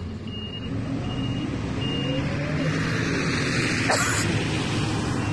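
City bus interior: a repeated high warning beep sounds until about two seconds in, then the bus's engine picks up, its pitch rising as the bus pulls away. A short burst of hiss comes about four seconds in.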